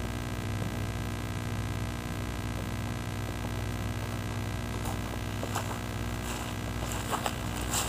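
Steady electrical hum, a drone of many fixed tones, picked up by the onboard camera of a grounded FPV aircraft from its own electronics. A few faint clicks and crackles come in during the last few seconds.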